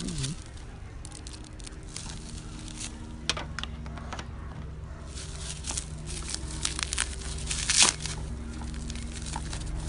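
Plastic packaging and bubble wrap crinkling and being torn open by hand, in irregular crackles, with the loudest rip about eight seconds in. A steady low hum runs underneath.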